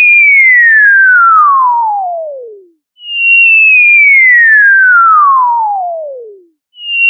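Cartoon falling sound effect: a whistling tone sliding steadily down in pitch and fading out over about three seconds, heard twice, the second glide starting about three seconds in.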